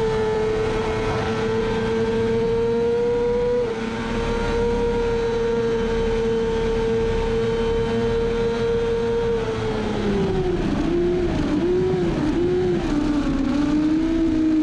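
Kawasaki ZX-6R inline-four race engine running flat out at high revs, with wind rush. It shifts up once about four seconds in, from fifth to sixth, and holds high revs. Past the middle the revs fall in steps with short rises and falls as the rider brakes and downshifts toward second gear.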